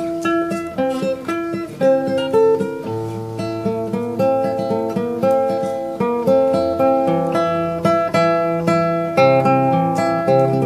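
Background music: an instrumental Sundanese degung piece, with quick plucked and struck melodic notes over a steady low bass line.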